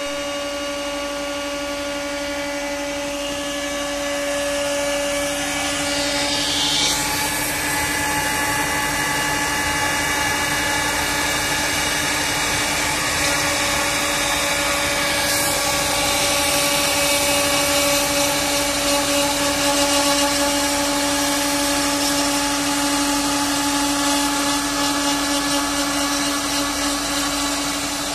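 CNC router spindle running at a steady high pitch while its profile bit mills a raised-panel edge into a wooden panel; it gets a little louder about four seconds in.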